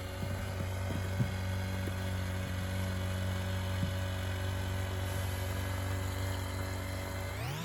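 Small engine running steadily with a few faint knocks about a second in, then revving up smoothly to a higher speed near the end.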